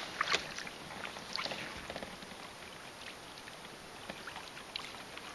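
Kayak paddle strokes in calm water: soft, irregular splashes and drips as paddle blades dip in and lift out.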